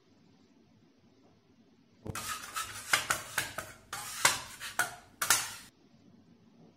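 Metal dough scraper scraping and tapping on a wooden board as it gathers up a ball of pizza dough. A quick series of sharp scrapes and knocks starts about two seconds in and stops shortly before the end, after a near-silent start.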